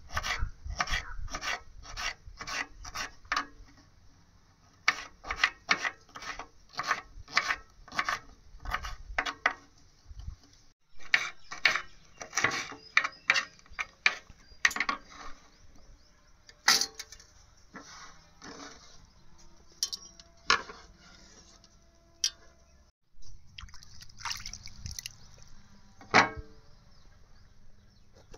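A knife chopping on a wooden cutting board, about three knocks a second, in several runs with short pauses between them.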